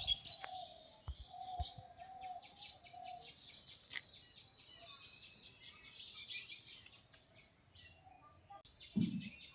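Birds chirping and calling many times over a steady high-pitched background noise, with a low thud near the end.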